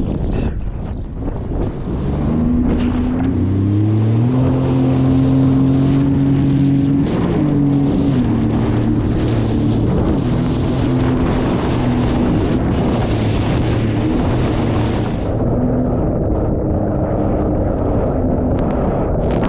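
Sea-Doo RXT-X 300 personal watercraft's supercharged Rotax three-cylinder engine under way: the revs climb in steps over the first few seconds, hold high, then drop back a step about seven seconds in and run fairly steady. Rushing wind and water spray sound over the engine throughout.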